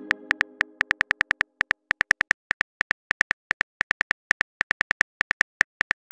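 Phone keyboard key clicks as a text message is typed, quick and irregular at about four or five a second. The tail of a message chime fades out during the first second.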